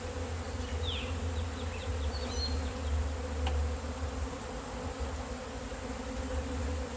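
Honey bees buzzing steadily in a dense swarm around an open hive, with a low rumble underneath and a few faint high chirps near the start.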